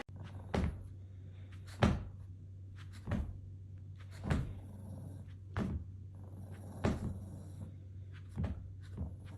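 A series of short knocks or thumps, roughly one every second and a quarter, over a steady low hum.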